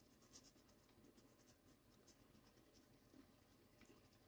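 Faint scratching of a fine-tip Sharpie pen nib on paper as it traces around inside a plastic spirograph gear, in many short, irregular strokes and light ticks.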